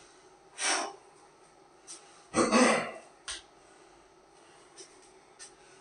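A man's breathy throat-clearing and huffing sounds: a short huff about half a second in and a louder one near the middle, followed by a few faint clicks.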